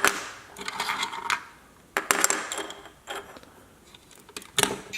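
Hard plastic parts of a toy lumber truck clicking and rattling as they are moved by hand: a few separate clicks and short rattles, with a sharp click about two seconds in and another near the end.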